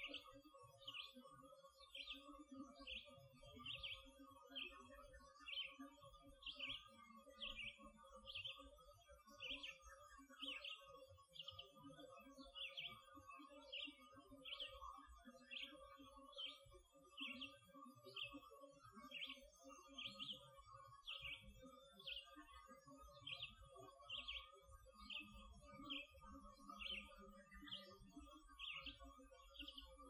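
Faint dawn birdsong: a songbird repeats a short, high chirp about once a second, over a steady faint hum.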